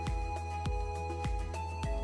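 Background music with a steady beat of about one low thump every 0.6 seconds under held melodic notes.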